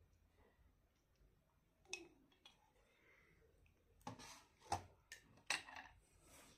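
Two faint clicks, then a cluster of short scrapes and clatters from about four seconds in, typical of handling cutlery and dishes while eating.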